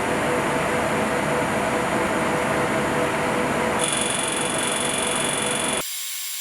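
Automatic lathe running while it machines brass with a small carbide tool: steady machining noise with a faint hum. A high whine joins a little after halfway, and the lower part of the sound drops out briefly just before the end.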